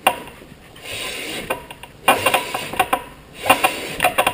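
Honda CBX front wheel being turned by hand and its disc brake worked: a rubbing rush as the wheel spins, with sharp metallic clicks and knocks from the brake and wheel in between. This is a test of whether the rebuilt front brake now frees the wheel and grips it again.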